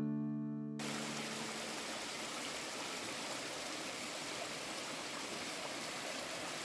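A small mountain stream cascading over rocks, a steady rush of water. The last chord of background music rings out and cuts off under a second in.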